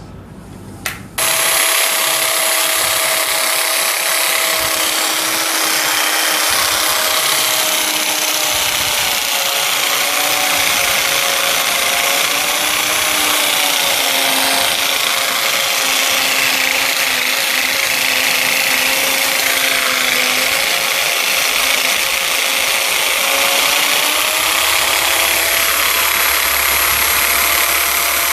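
A small electric motor switches on about a second in with a click and runs steadily and loudly. Its whine drifts slightly up and down in pitch over a constant hiss.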